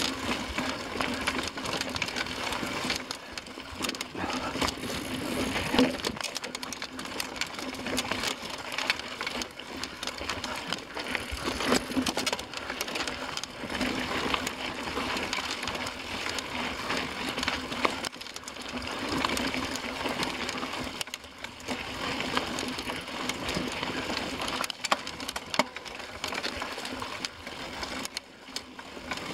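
Mountain bike riding over rocky dirt singletrack, heard from a camera riding with it: tyres crunching over gravel and stones, with the bike rattling and knocking irregularly over the rough ground and a steady low hum underneath.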